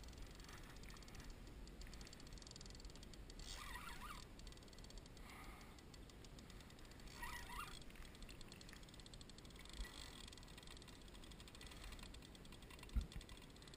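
Near silence on the water: faint brief rustles a few times, and a soft knock near the end.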